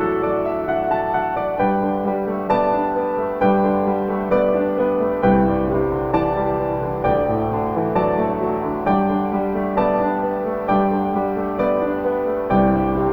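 Slow, gentle piano music, sustained notes struck at an even pace of about one a second, with deep bass notes entering about five seconds in.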